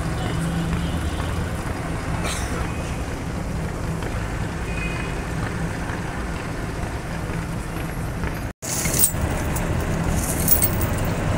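A mobile crane's diesel engine running steadily. After a sudden break in the sound about three quarters of the way through, heavy steel lifting chains clink and rattle as they are handled.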